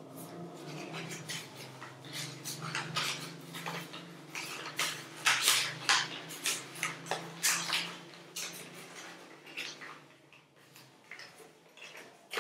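Paper being folded and creased by hand: a run of crisp rustles and crackles, loudest in the middle. A low steady hum lies underneath and fades out in the second half.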